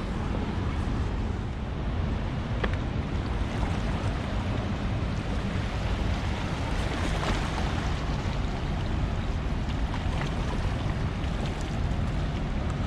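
Steady wind buffeting the microphone over a constant rush of water, with a few faint ticks.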